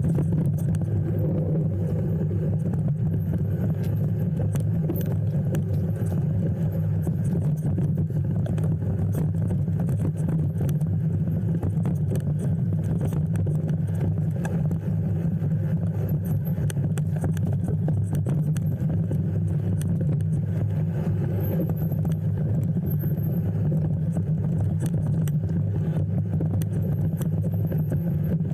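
Steady low rumble of a moving road vehicle, engine and road noise, running evenly without change.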